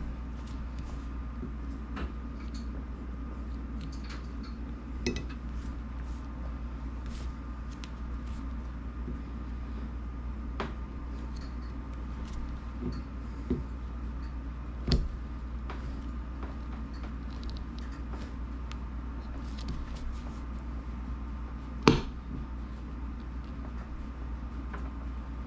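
Scattered clicks and light knocks of hand tools working the rubber seal of a new windshield against the glass and frame. The sharpest knock comes about 22 seconds in. A steady low hum runs underneath.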